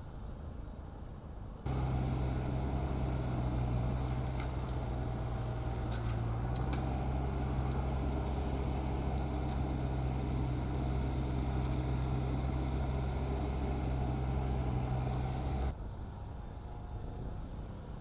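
Mini excavator's diesel engine running at a steady speed, a low even hum. It starts abruptly about two seconds in and cuts off abruptly shortly before the end, leaving quieter outdoor background.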